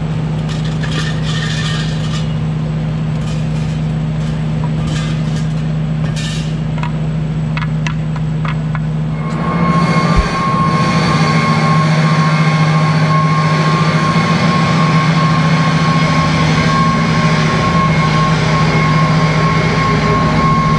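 Vapor-blasting equipment running with a steady low drone. A few clicks and knocks come through in the first half. About nine seconds in, the sound grows louder, adding a hiss and a steady high whine.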